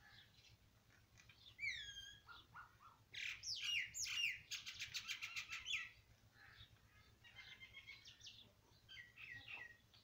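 Small birds chirping: a few high, downward-sliding chirps about two seconds in, then a quick, busy run of chirps for a couple of seconds, and a few more near the end.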